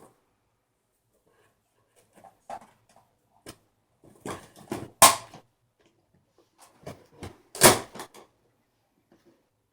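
Toy blaster's cardboard box being opened and its packaging handled: scattered rustles and knocks, the loudest about five and seven and a half seconds in.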